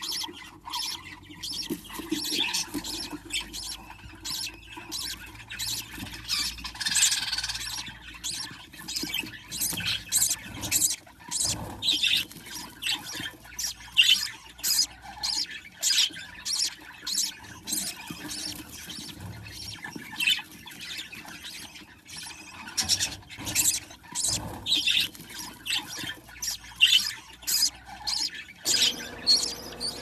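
Newly hatched budgerigar chicks begging with a steady run of short, high-pitched squeaky cheeps, about one or two a second, as the hen feeds them.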